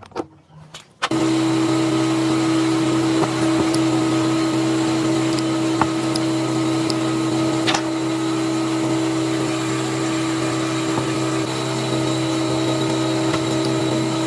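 Restored electric air compressor switched on about a second in, then running with a steady hum.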